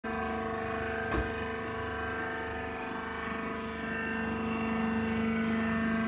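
Hydraulic baling machine's power unit running with a steady, even hum. There is a single short knock about a second in, and the hum grows a little louder about three seconds in.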